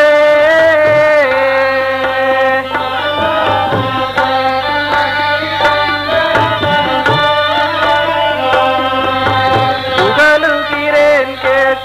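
Music with drumming and a held melody that bends in pitch over a steady low drone.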